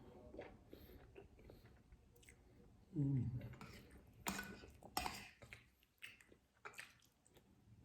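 Close-miked wet chewing and mouth sounds of someone eating glutinous rice and durian in coconut-milk sauce. A short hummed vocal sound falling in pitch comes about three seconds in, followed by a few sharp clicks.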